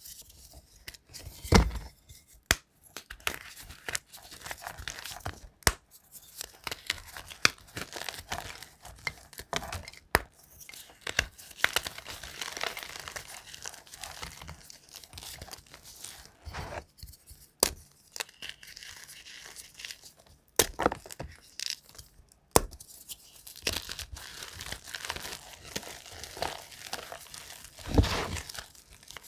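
Blocks of gym chalk crushed by hand: dry crunching and crumbling with irregular sharp cracks as the blocks break apart, and powdery rustling in between.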